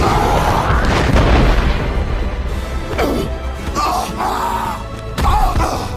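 Orchestral film score over loud booming action effects, with deep rumbling and a heavy blast in the first second.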